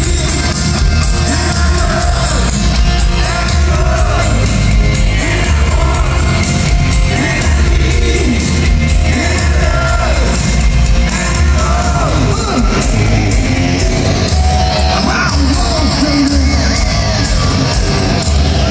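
Hard rock band playing live in an arena: electric guitars, drums and bass under lead singing, echoing in the large hall.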